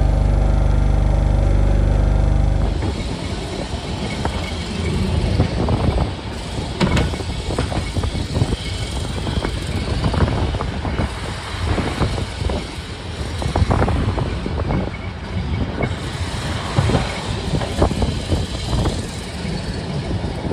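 Open-top Blackpool Boat tram 227 running on the tramway, heard from on board. A steady low hum for the first three seconds stops suddenly. After that there is a rough rumble with many irregular knocks and rattles.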